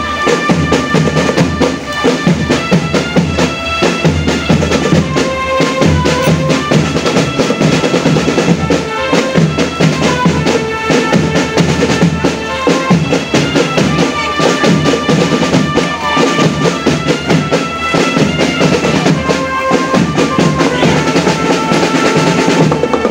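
Marching drum band playing a tune: bass and snare drums with drum rolls beat steadily under a held, reedy melody line.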